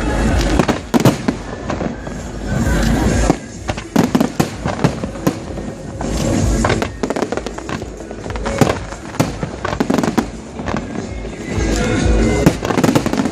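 Aerial fireworks display going off: a dense, uneven run of sharp bangs and crackles over deep booms, with no break.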